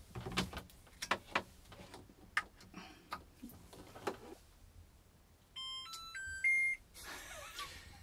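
Tiny Wash compact washing machine playing its electronic welcome melody on being powered up: a quick run of pure beeps at changing pitches, about a second long, ending on its loudest note. Before it, a series of sharp clicks and knocks.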